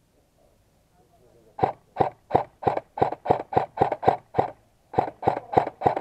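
Airsoft rifle fired in quick single shots, about three a second: a run of about ten sharp shots, a short pause, then more.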